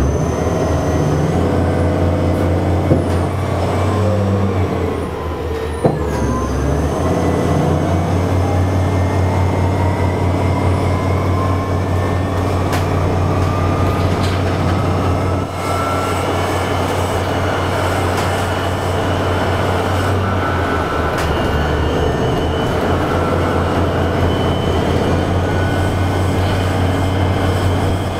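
Interior of an ElDorado National EZ Rider II BRT gasoline-electric series-hybrid bus under way: a steady low hum, with the electric drive's whine rising in pitch as the bus gathers speed several seconds in. A few light knocks and rattles come through the cabin.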